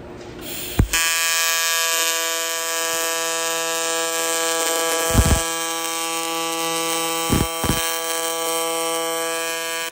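AC TIG arc welding aluminum on a Miller Dynasty 280 set to a 165 Hz AC frequency: a steady, loud buzz that strikes with a sharp crack about a second in and cuts off abruptly as the arc is broken. A few dull knocks come about halfway through and again a couple of seconds later.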